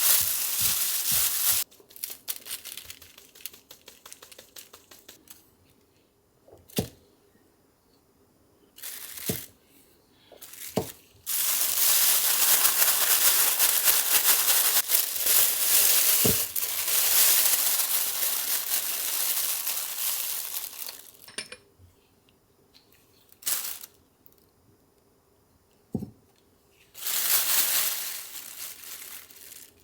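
Crinkly wrapping rustling and crinkling in bursts: a short burst at the start, a long one of about ten seconds in the middle, and another near the end, with a few sharp taps in between.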